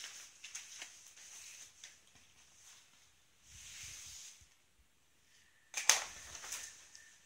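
Duvet fabric rustling in soft bursts as a kitten pounces and scrabbles after a feather wand toy, with a sharp knock about six seconds in.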